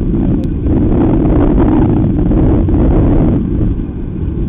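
Wind buffeting the microphone: a loud, low rumbling noise that eases a little about three and a half seconds in.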